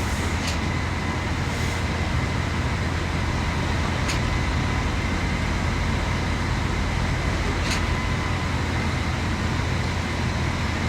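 Diesel engines of a concrete pump truck and ready-mix trucks running steadily during a concrete pour, with a sharp knock about every three and a half seconds.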